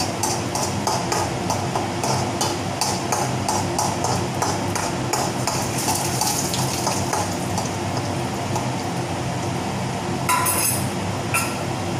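A metal spoon scraping around an iron kadhai as ground rice is roasted in ghee, about three strokes a second, easing off about halfway. Under it runs a steady fan hum, and a short burst of noise comes near the end.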